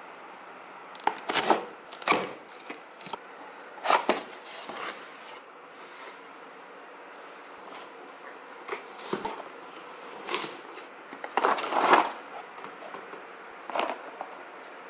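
Cardboard box and packaging being handled and opened: irregular knocks, scrapes and rustles, in short clusters a second or two apart.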